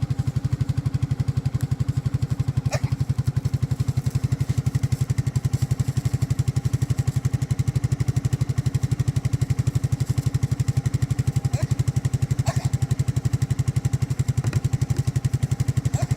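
Four-wheeler (ATV) engine running steadily with a fast, even putter that does not change in speed.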